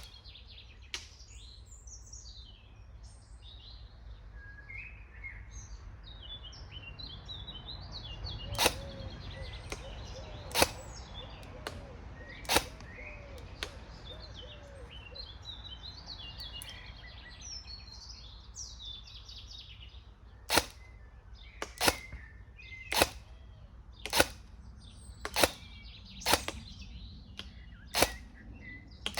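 Upgraded Cyma SR25 airsoft electric DMR firing single semi-auto shots, each a sharp snap: three spaced about two seconds apart, then after a pause a run of about eight roughly a second apart. Birds chirp throughout.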